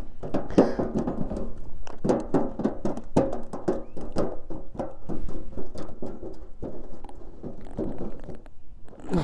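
Freshly landed rainbow trout flopping on the wet deck of a small pontoon boat, with many irregular wet slaps and thuds as a hand grabs at it.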